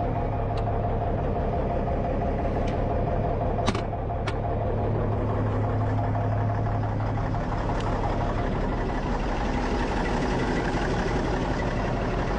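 Semi truck's diesel engine idling steadily, with a few sharp clicks and taps, the loudest about four seconds in.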